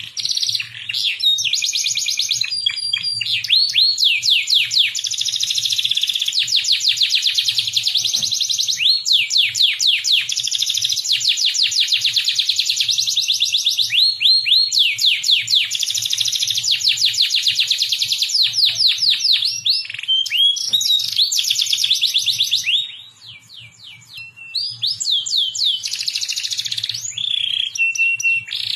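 A domestic canary singing a long, continuous song of rapid trills. Each trill is a quick run of repeated rising notes, and the song switches to a new trill every second or two, with one brief pause near the end.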